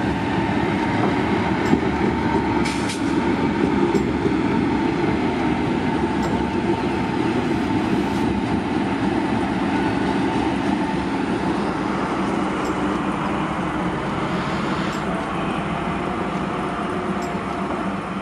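Diesel locomotive (TPI-owned No. 70106) with its engine running steadily as it moves slowly past and pulls away, the sound easing slightly toward the end.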